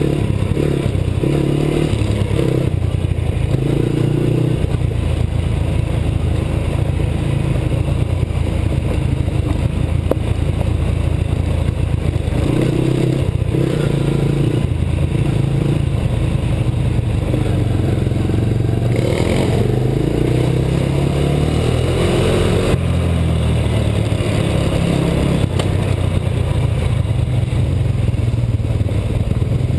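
2003 Honda TRX 90 quad's small single-cylinder four-stroke engine running under way, its pitch stepping up and down as the throttle is worked, heard from the rider's helmet camera.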